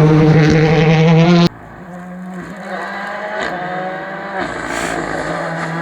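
Rally car engine running loud at high revs, cut off abruptly about 1.5 s in, followed by a quieter rally car engine whose pitch rises as it accelerates, drops briefly and climbs again.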